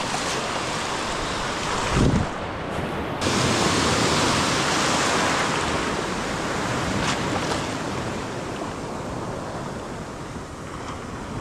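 Shore-break surf washing in shallow water around the feet, with wind on the microphone. A brief low thump comes about two seconds in. A wave rushes in about three seconds in and its wash then slowly fades away.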